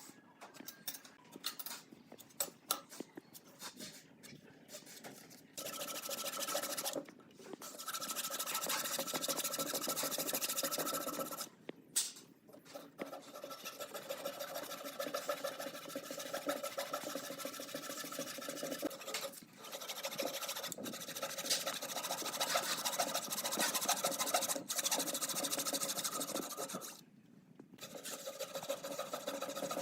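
A few light taps and clicks of handling, then a small electric power tool working wood, running in long stretches with a steady pitched motor hum and stopping briefly four times.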